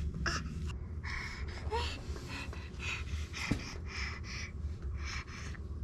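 A baby breathing in short, quick, excited huffs and gasps, about two a second, while held up to stand and step. There is one tiny rising squeak about two seconds in.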